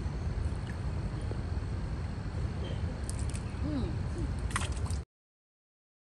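Steady rush of a fast-flowing stream, with a few small splashes or knocks near the end. The sound cuts off abruptly about five seconds in.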